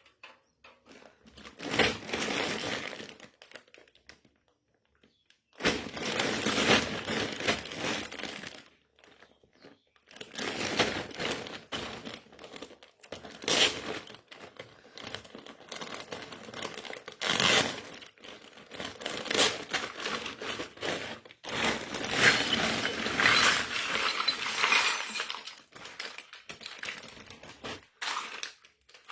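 Plastic packaging crinkling and rustling as a miniature toy kitchen set is unwrapped, with a few sharp clicks, in several separate stretches split by dead silence.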